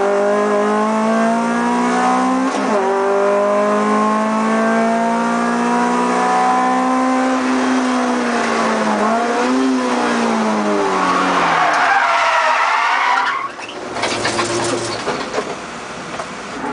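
Honda Integra DC2's four-cylinder engine heard from inside the cabin, running at high revs on track with slow rises and falls in pitch. About three-quarters of the way through its note drops away sharply and the cabin goes much quieter.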